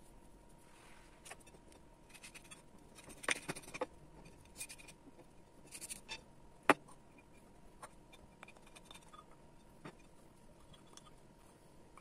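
Aloe vera leaf being cut open and its gel scraped out with a wooden spoon against a ceramic plate: faint scraping and small clicks, with one sharper click a little before seven seconds in.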